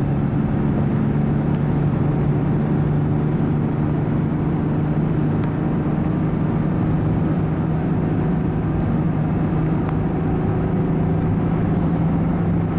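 A car's engine and road noise heard from inside the cabin while it drives at a steady pace. The engine note holds one even pitch throughout.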